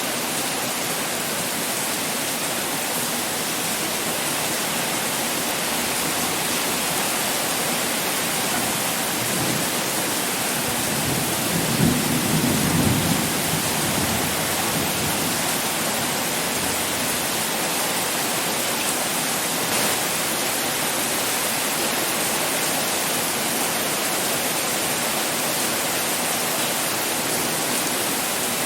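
Heavy pouring rain, a steady, even hiss. Near the middle a low roll of thunder rumbles for a couple of seconds.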